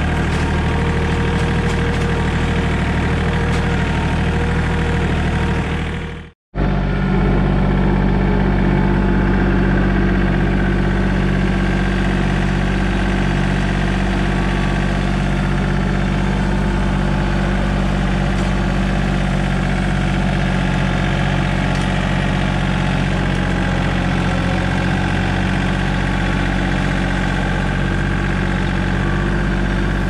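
John Deere 4400 compact tractor's three-cylinder diesel engine running steadily under way, heard from the driver's seat. The sound cuts out for an instant about six seconds in and comes back at a slightly different pitch.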